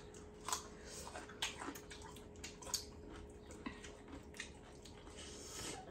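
Eating by hand at a meal: scattered soft clicks and wet smacks of chewing and of fingers mixing rice on plates, over a faint steady hum.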